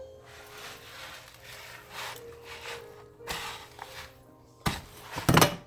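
A spoon stirring a thick, sticky mix of oats, honey and candy in a bowl: repeated scraping, rubbing strokes, with a louder clatter of the spoon against the bowl near the end.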